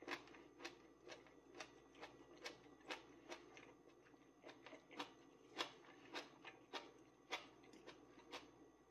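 A person quietly chewing stir-fried greens, with small sharp mouth clicks at a fairly even pace of about two a second.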